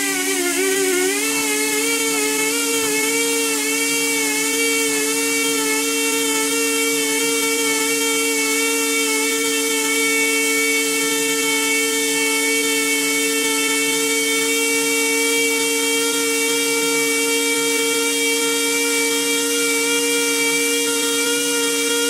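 MWR-JGS mini grooving tool running under load while it cuts serration grooves into a 2.5-inch tube hole in a boiler-drum tube sheet. Its motor whines steadily over a constant hiss; the pitch wavers for about the first second and then holds level.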